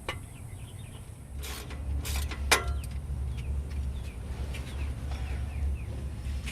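Wrench work on exhaust bolts under a car: a click at the start, then a few sharp metal knocks around two seconds in, the last the loudest, over a steady low rumble.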